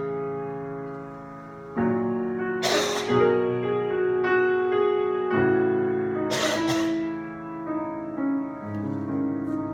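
Piano playing slow sustained chords that ring and fade, with new chords struck about two seconds in and past the middle, and moving notes near the end. A short hiss cuts across the chords twice.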